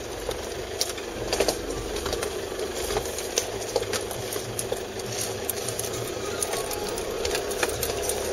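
Toyota Hilux 3.0 D-4D four-cylinder turbodiesel running at low revs, heard from inside the cab, with scattered sharp clicks over the steady drone.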